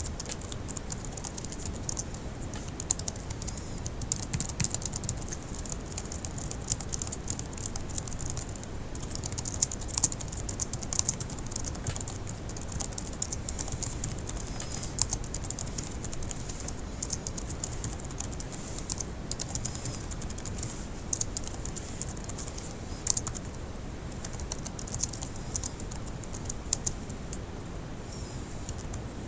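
Fast typing on a laptop keyboard: a steady, dense run of key clicks with a few brief pauses.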